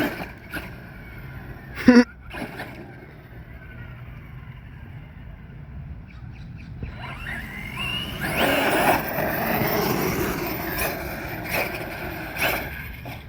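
Electric remote-control truck running: two sharp knocks early, then the motor whines up in pitch as it accelerates, with a rush of tyres and grit that grows loudest in the second half.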